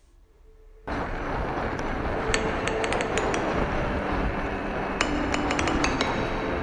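Wind and road noise on a moving e-bike begin suddenly about a second in, with clusters of sharp metallic clinks and rattles that come and go.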